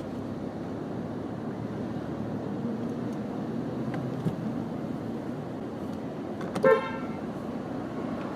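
Steady street traffic noise, with one short car horn toot about six and a half seconds in.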